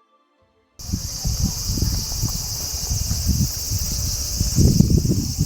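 Silence, then about a second in cicadas cut in: a steady, high, continuous buzzing chorus, with an uneven low rumble underneath.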